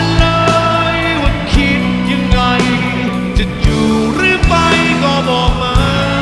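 Live rock band playing: drum kit, electric guitar and a male lead vocal singing, with drum hits throughout.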